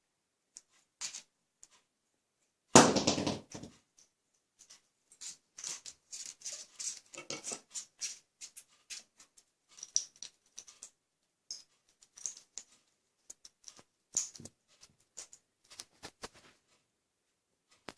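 Grey parrot beaking and handling a toy train: scattered small clicks, taps and scratching, with one loud clatter about three seconds in.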